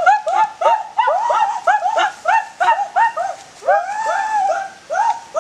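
Several dogs yipping and whining in short, high, arching cries, several a second and overlapping without a break.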